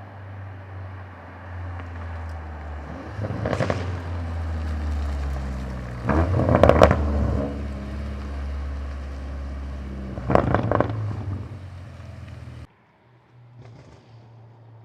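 BMW F90 M5 Competition's twin-turbo V8 running through a Remus cat-back exhaust with downpipes, with three bursts of crackles and pops as it is downshifted; the middle one, about seven seconds in, is the loudest. Near the end the sound cuts off suddenly to a quieter engine hum.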